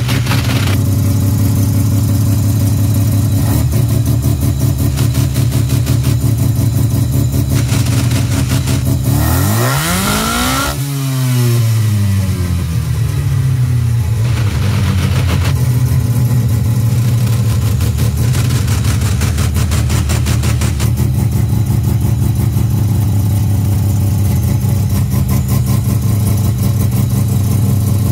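Full-bridgeport 12A rotary engine fed by a Holley 650 carburettor idling with a rapid pulsing beat. About nine seconds in it is revved once: the pitch climbs quickly, then falls back to idle over a few seconds. This is the carburettor's setup before the air bleeds were enlarged, which the owner says runs rich at wide-open throttle and stumbles when the throttle is stepped on.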